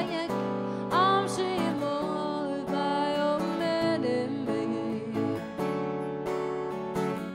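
Live acoustic guitar strummed steadily in chords, with a woman's voice singing short gliding phrases over it, about a second in and again around four seconds in.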